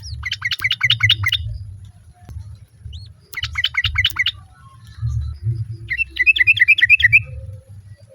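Yellow-vented bulbul (trucukan) giving three bursts of rapid bubbling chatter, each about a second long, a few seconds apart. A low rumble runs underneath.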